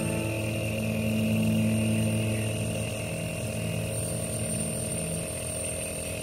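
Nebulizer air compressor running with a steady, even hum.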